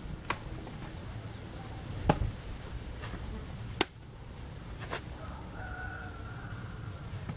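A mason's trowel working wet cement mortar: about five short, sharp knocks, the loudest about two and four seconds in, over steady low background noise.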